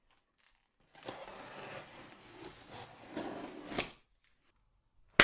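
A cardboard shipping box being handled by a gloved hand: about three seconds of rough rustling and scraping of cardboard, then a single sharp knock at the very end.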